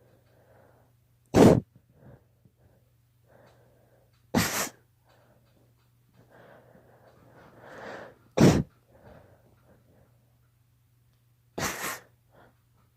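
A girl sneezing four times, a few seconds apart: allergy sneezes. Quiet breaths and sniffs come between them, and a long rising in-breath leads into the third sneeze.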